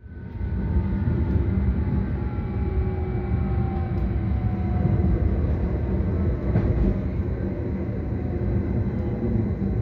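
Inside a GYSEV Stadler FLIRT electric multiple unit: steady rumble of the wheels on the track, with the electric traction drive's whine falling slowly in pitch as the train slows.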